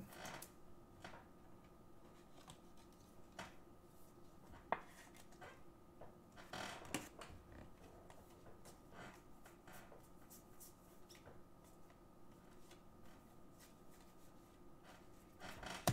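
Faint clicks and soft slides of Bowman baseball cards being flipped through and sorted by hand, with one sharper tick about five seconds in, over a low steady hum.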